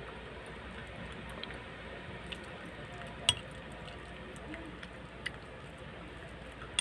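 Metal spoon clinking against a ceramic bowl while scooping soft baked macaroni, with one sharp clink about three seconds in and a few fainter taps, over soft chewing.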